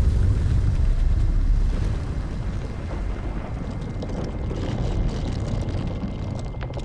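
Deep, steady rumble of a film's sound-design ambience, loudest for the first couple of seconds and then easing down, with a few faint crackles near the end.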